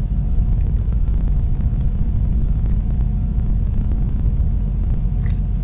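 A steady low rumble of background machinery, with faint crackles of a plastic parts bag being handled.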